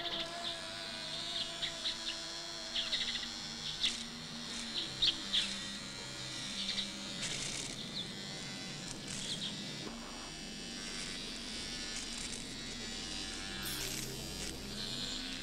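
Buzzing, insect-like chirps and short clicks, then an electric shaver buzzing steadily in the last few seconds.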